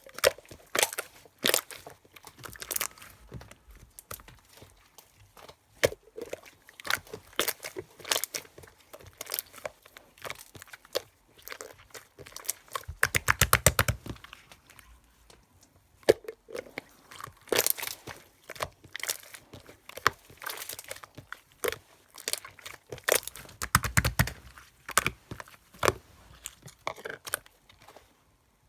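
Rubber eraser rubbing on paper in short scratchy strokes. Twice, about halfway through and again near the end, it goes into a fast, even back-and-forth scrubbing.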